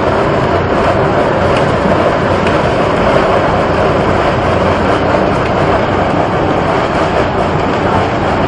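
Jet of mud and water blowing out of the ground, a loud, steady rushing noise that does not let up.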